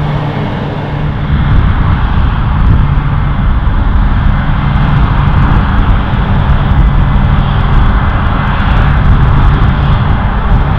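New Holland FR9060 self-propelled forage harvester running steadily while chopping maize and blowing it into a trailer alongside. A constant engine drone mixes with the rushing noise of the chopping and crop flow. It gets a little louder about a second in.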